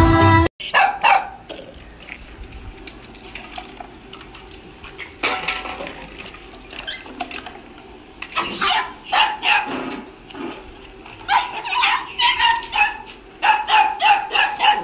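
Small dog barking in high, short yaps, in several bouts with quieter gaps between.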